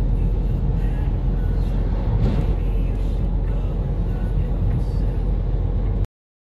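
Steady low road and engine rumble inside a moving car's cabin. An oncoming truck passes about two seconds in with a brief whoosh, and the sound cuts off suddenly about six seconds in.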